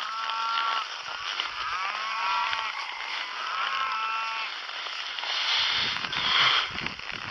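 Cattle mooing: three calls, each about a second long, then a rough noisy stretch near the end.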